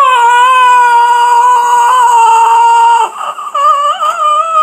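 A boy's voice letting out a long, loud, high held wail without words, then a wavering, whimpering cry near the end.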